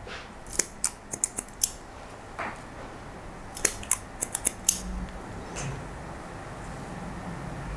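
Barber's hair-cutting scissors snipping wet hair held between the fingers: quick, sharp snips in two runs, one starting right away and one about three and a half seconds in, with a short pause between.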